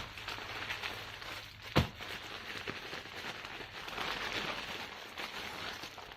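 Plastic packaging rustling and crinkling as items are handled, with a sharp knock a little under two seconds in.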